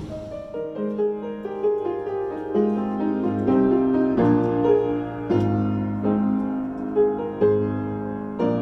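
Solo piano music: a slow melody over sustained chords.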